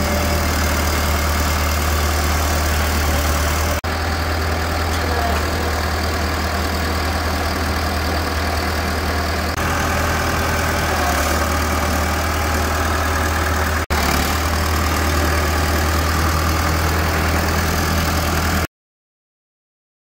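Case 860 tractor's engine idling steadily, with two very brief dropouts, then cutting off suddenly near the end.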